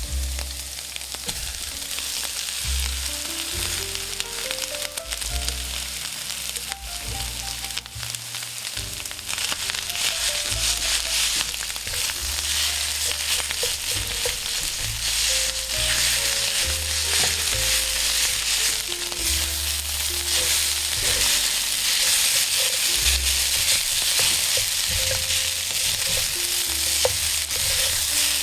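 Kimchi fried rice ingredients sizzling on a hot iron griddle while being stir-fried. The sizzle is steady and gets louder about nine seconds in, with a quiet melody playing underneath.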